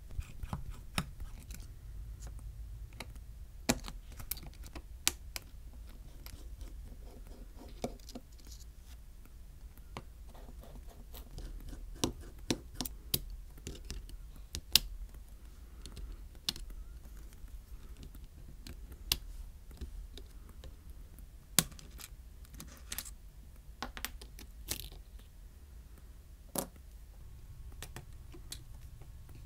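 Scattered sharp clicks, taps and light scrapes of precision repair tools on an iPhone 12's internals: a small screwdriver on tiny board screws, tweezers and a plastic spudger prying, over a low steady background hum.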